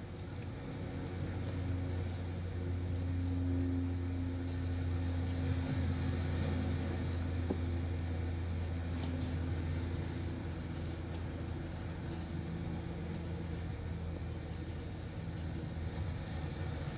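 Steady low hum, with a few faint scratches of a pencil on paper.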